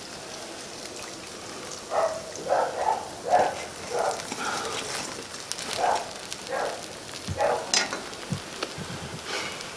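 Hot deep-frying oil sizzling in a cast-iron kazan as a whole fried carp is lifted out and its oil drips back into the pot. Irregular short louder bursts come between about two and eight seconds in.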